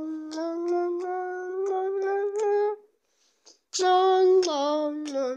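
A person humming long, steady held notes. The humming breaks off for about a second in the middle, then comes back louder and dips lower in pitch. Small clicks are scattered through it.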